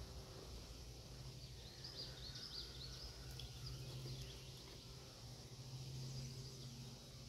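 Faint outdoor ambience: a low steady hum underneath, and a small bird giving a quick series of high chirps from about one and a half to three and a half seconds in.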